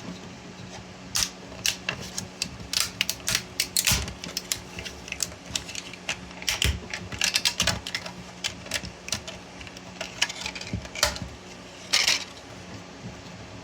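PLA Pro support material being snapped and peeled off a 3D print by hand: an irregular run of sharp cracks and clicks, some louder snaps among many small ticks, over a faint steady low hum.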